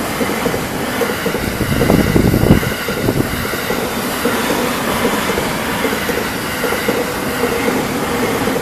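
Electric train running past at close range: a continuous rumble and rattle of wheels on the rails, loudest about two seconds in.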